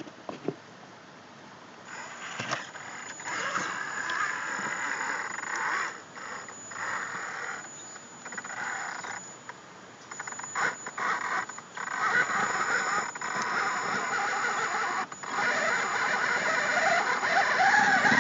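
The electric motor and geared drivetrain of a radio-controlled rock crawler whine in stop-and-go spurts as it climbs a rock ledge, louder toward the end. Tyres and chassis click and scrape on the stone.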